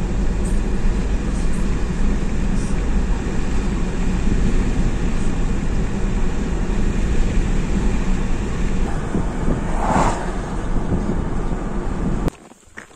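Car cabin noise while driving: a steady rumble of engine and tyres on asphalt, with a brief louder swell about ten seconds in. It cuts off suddenly near the end, leaving a much quieter outdoor sound with a few light taps.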